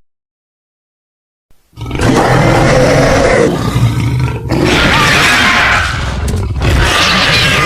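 Giant-monster roar sound effect in the Godzilla style, starting after about a second and a half of silence and running loud for several seconds. It shifts in pitch in several stretches with short breaks between them.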